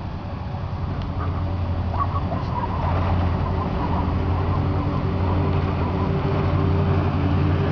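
LiAZ-677M city bus approaching along the road, its ZIL V8 petrol engine running steadily and growing louder about three seconds in as the bus draws near.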